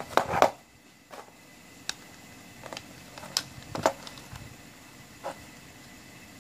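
Hard plastic clicks and knocks as a cassette tape and a cassette-shaped AM/FM tuner pack are handled and held against each other. A few sharp knocks come first and are the loudest, followed by scattered lighter clicks.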